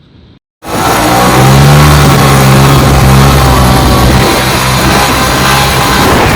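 Loud rock music with a heavy, distorted sound, cutting in abruptly after a moment of silence about half a second in.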